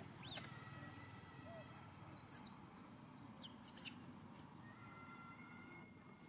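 Faint, short, high-pitched chirping calls: one just after the start, one a little past two seconds in, and a quick run of several near four seconds, over a faint steady high tone.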